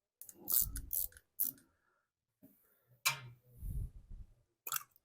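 Short clicks, scrapes and small knocks of hand tools and metal parts being handled as the float bowl is unscrewed and taken off a Briggs & Stratton engine's carburetor. The sharpest click comes about three seconds in, followed by a soft low knock.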